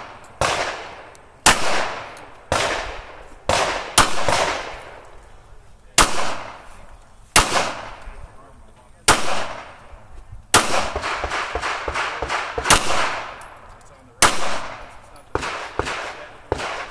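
Pistol shots fired one at a time, about a second apart, each crack trailing off in a long echo. About ten seconds in, a quick run of fainter pops comes between the shots.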